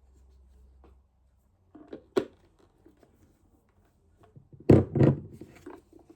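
Hard plastic of a toy car being handled: a few sharp knocks around two seconds in and a louder clunk just before five seconds, with small clicks after it.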